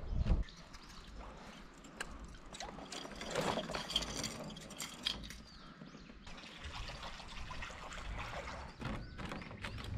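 Water trickling and splashing, with scattered small knocks and a heavier low knock at the start.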